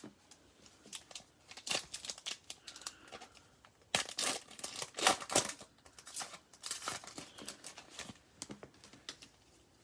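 A trading-card pack's foil wrapper being torn open and crinkled: a run of crackling rips and rustles that starts about a second in, is loudest around the middle and dies away near the end.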